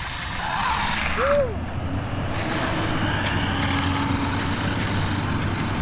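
Toy remote-control car's small electric motor and gears whirring steadily as it is driven.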